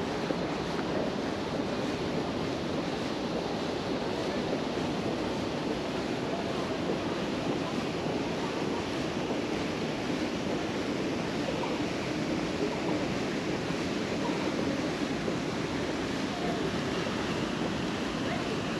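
Steady rushing wind noise on a GoPro action camera's microphone, even throughout with no distinct events.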